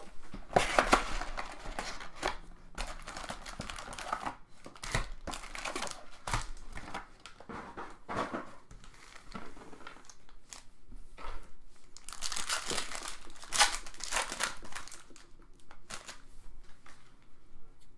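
Plastic wrapping on a box of trading cards and its packs being torn open and crumpled: irregular crinkling and tearing, with the loudest bursts about two-thirds of the way through.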